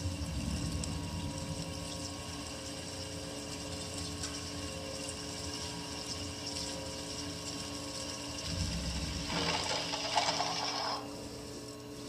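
CNC mill spindle, driven by a Huanyang VFD, feeding a 0.6-inch drill at about 500 rpm into 1018 cold-rolled steel: a steady motor hum under the grinding of the cut, with a louder hissing, rasping stretch about nine to eleven seconds in.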